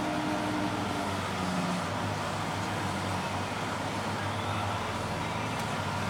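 Combine harvester running steadily, an even engine drone with the hum of its machinery.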